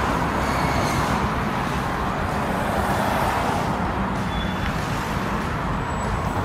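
Steady road traffic noise: cars driving past on a busy multi-lane city road, a continuous rumble and hiss without breaks.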